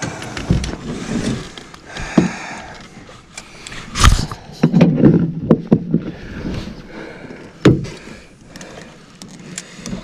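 Knocks and thumps on a small fishing boat as the gear and a netted pike are handled, the loudest about four seconds in and again near eight seconds.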